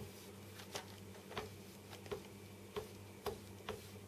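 Faint light clicks and taps, about six spread unevenly, as a model covering iron is set down and dragged over heat-shrink covering film on a balsa wing to tack it in place. A low steady hum runs underneath.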